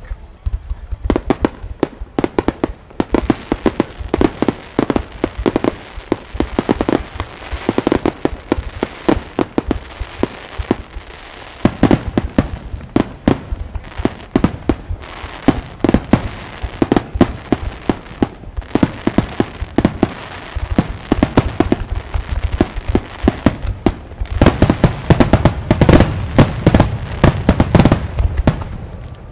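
Large 'Super Vesuvius' firework barrage: shells and mines bursting in rapid volleys, many sharp bangs with deep booms underneath. The firing thins briefly about ten seconds in and comes back densest and loudest near the end.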